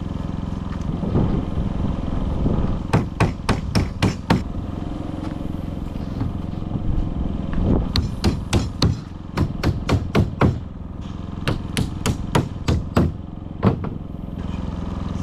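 Hammer strikes in quick runs of several blows, driving nails into the shed's wooden framing, over a steady low hum.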